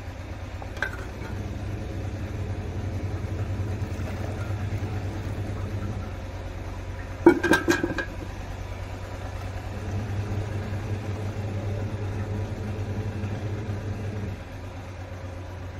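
Milk being poured from a steel mug into a large iron kadhai, in two long pours. Between them, about halfway through, the mug clanks against the metal bucket as it is dipped for more.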